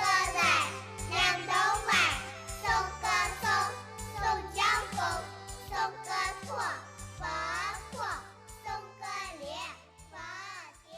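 Music with a singing voice over a bass line that changes note every half second or so, fading out at the end.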